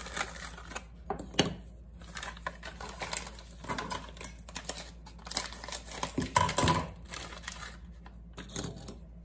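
Crinkling and rustling of instant-food packets being torn open and handled, with scattered clicks and light knocks of things set down on the counter; a cluster of louder knocks comes about six and a half seconds in.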